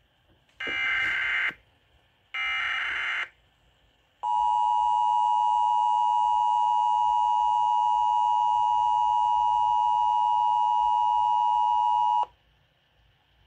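Emergency Alert System signals for a hurricane warning: the last two of three SAME header data bursts, about a second each, then the EAS two-tone attention signal, a steady two-note tone held for about eight seconds that cuts off sharply.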